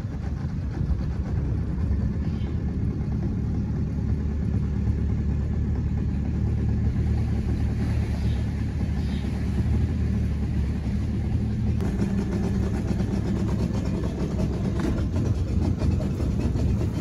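Boat motor running steadily.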